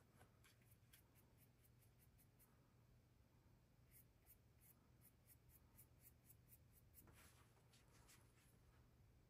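Faint soft ticks and strokes of a paintbrush dabbing oil paint onto a small painting panel, several a second in two short runs, over a low steady hum.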